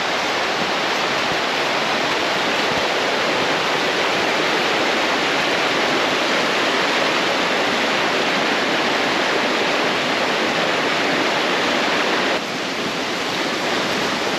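Snowmelt- and rain-swollen mountain brook in high flow, rushing loudly and steadily. The sound drops a little in level about twelve seconds in.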